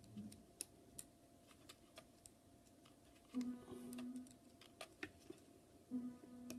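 Faint, scattered small clicks and taps as iPhone 6 flex-cable connectors are pressed onto their board sockets during screen reassembly. From about halfway in, a faint steady low tone comes in short held stretches.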